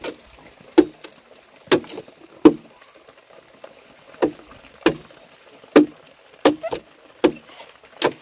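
A tool striking wood in a series of about a dozen sharp knocks, spaced irregularly about half a second to a second apart, some of them in quick pairs.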